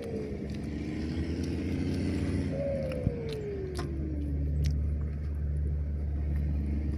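A motor vehicle engine running nearby: a steady low hum, with an engine whose pitch falls as it passes or slows about two and a half seconds in. A few light clicks.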